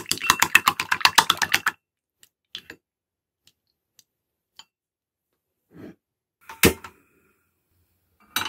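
Two eggs being beaten with a wooden spoon in a ceramic bowl: a fast run of light clicking taps, about eight a second, that stops about two seconds in. A few faint taps and a single sharp knock follow later.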